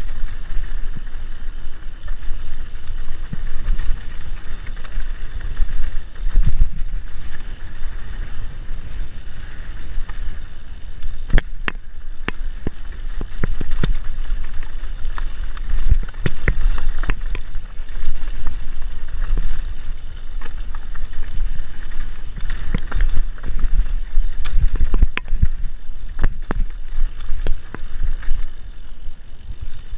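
Mountain bike rolling fast down a dirt trail: tyre noise on the dirt, the bike rattling with many sharp knocks over bumps, more of them from about a third of the way in, and wind buffeting the microphone.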